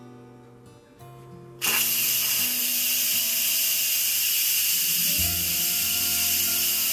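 Instant Pot IP-DUO's steam release valve venting, letting out the remaining pressure after cooking as a loud, steady hiss of steam that starts suddenly about a second and a half in.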